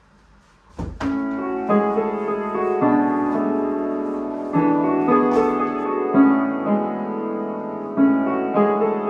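Piano starting about a second in and playing slow, sustained chords that change every second or two.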